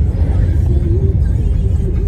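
Steady low road rumble of a moving car, heard from inside, with music playing over it: a wavering melody line carries on above the drone.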